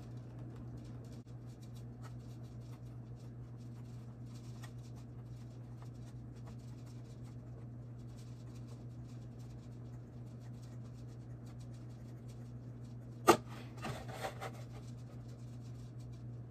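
Hobby knife blade scoring a polycarbonate (Lexan) RC car body along the cut line: faint, repeated scratching over a steady low hum. About 13 seconds in comes a single sharp loud click, followed by a few softer knocks.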